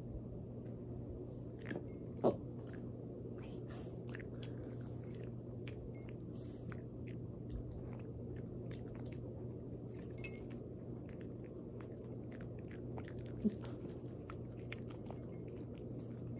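Quiet room with a steady low hum and faint scattered mouth clicks and lip-licking from a small dog holding still while it waits for a treat. One short rising squeak about two seconds in.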